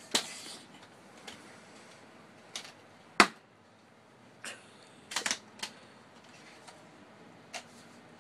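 Scattered sharp knocks and thumps as a child spins and swings a toy lightsaber. There is a brief whoosh of noise at the start, the loudest knock comes about three seconds in, and a quick cluster of knocks follows a little after five seconds.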